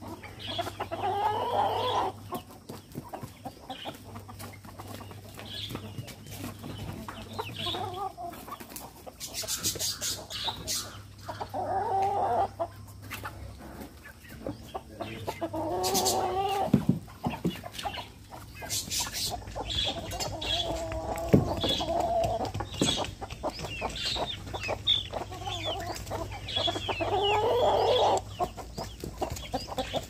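Chickens clucking, with about five longer drawn-out calls of a second or two each, spread a few seconds apart.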